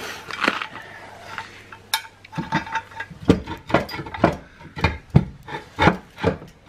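Metal clinking and knocking as a steel axle stand's post and locking pin are handled under the car: a lone click, then from about halfway a quick run of short sharp taps, roughly three a second.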